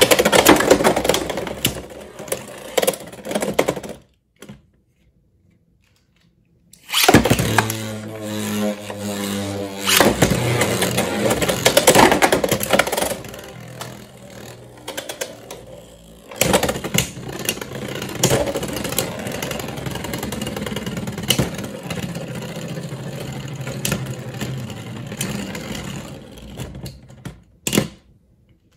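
Beyblade X spinning tops (Phoenix Wing 9-60P against Leon Crest 7-60GN) whirring and grinding in a plastic stadium, with many sharp clicks as they strike each other and the walls. The sound cuts out completely twice.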